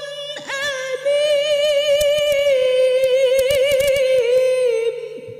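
A woman reciting the Quran in the melodic mujawwad style, drawing out one long ornamented phrase with wavering turns. The phrase grows louder about a second in, ends near the close and trails off in the hall's echo.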